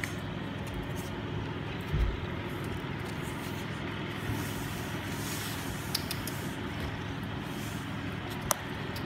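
Ragdoll cat purring, a steady low rumble, with a soft thump about two seconds in.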